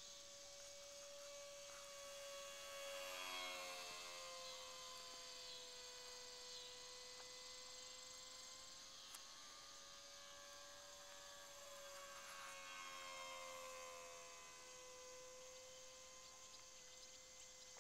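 Electric motor and propeller of an E-flite Curtiss N9 radio-control biplane, a faint steady hum as it flies overhead, swelling twice as it passes, about three seconds in and again about thirteen seconds in.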